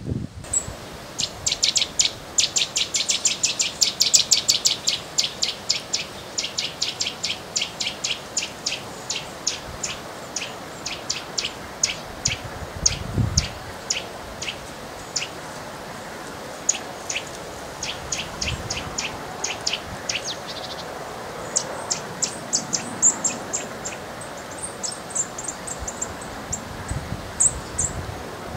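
A small bird calling a long run of sharp, clicking call notes, fast at first and slowing over about twenty seconds, then giving a few thin, higher chirps near the end.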